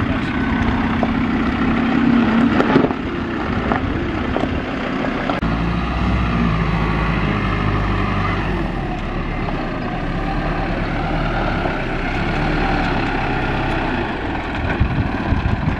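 Off-road vehicle engines working slowly over a rocky obstacle. First the Ford Ranger runs with a steady drone and a sharp knock about three seconds in as it grounds. Then the Isuzu NPS 75-155 4x4 truck's diesel engine runs low and steady as the truck crawls over the same obstacle.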